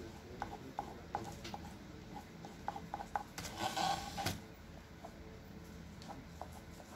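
Faint scratching and rubbing of a pastel crayon being worked over paper, with scattered small ticks and a brief louder rustle about halfway through.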